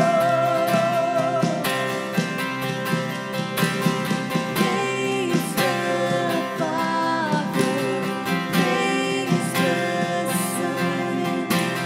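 Live acoustic worship song: a woman sings the lead while a man strums a steel-string acoustic guitar and sings along.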